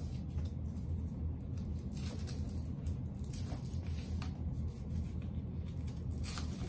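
Straps of a VACOped walking boot being pulled tight and fastened: a few brief rasps of strap material, over a steady low hum.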